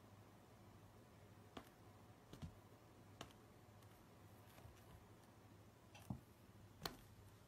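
Near silence: room tone with about five faint, sharp clicks and taps spread through it, from cat paws and claws striking at each other and on a leather sofa.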